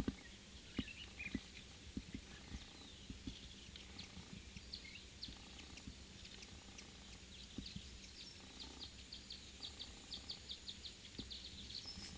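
Faint outdoor chirping of small birds, scattered at first, then a quick run of about five or six chirps a second in the later part. A few soft knocks sound in the first two seconds.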